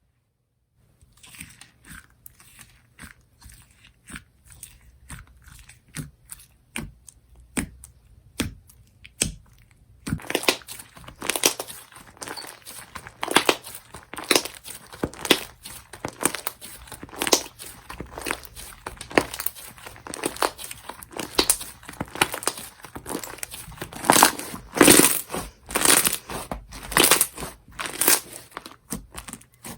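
Slime being mixed and squeezed by hand, giving crackly pops and crunchy clicks. The clicks are sparse and quiet at first, then about a third of the way in they turn into a dense, louder crackling.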